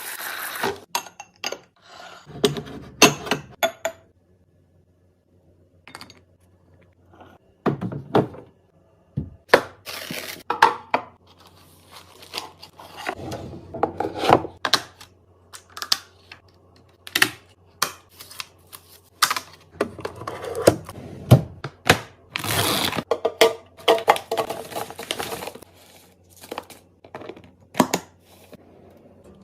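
Fridge restocking: an irregular run of clunks, clicks and clinks as containers, bottles and packaging are handled and set down on the shelves, with a short quiet gap about four seconds in.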